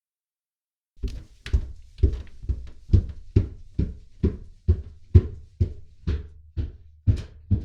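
Footsteps on indoor stairs: after about a second of silence, a steady walk of around fifteen thudding steps, a little over two a second.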